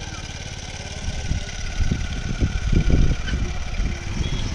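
A motor vehicle engine running steadily, with irregular low rumbles and thumps over it from about a second in.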